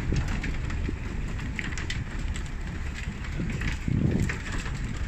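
Vehicle driving along a rough dirt road: a steady low rumble of engine and tyres, with light scattered knocks and wind noise.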